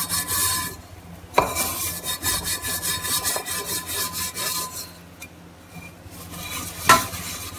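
Steel wool with lemon scrubbing the stained inside of a pressure cooker in quick back-and-forth rasping strokes. There is a sharp knock about a second and a half in and another near the end, and the scrubbing goes quieter for a moment just past the five-second mark.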